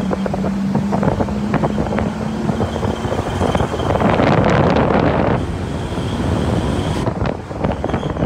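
Wind buffeting a phone microphone as it moves quickly down a street, with a vehicle engine running and scattered knocks. A steady hum runs through the first three seconds, and the wind noise swells about four seconds in.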